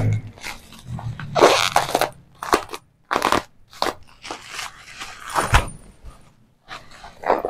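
Bubble wrap packaging being handled and pulled apart by hand, crinkling and crackling in irregular bursts with short pauses between them.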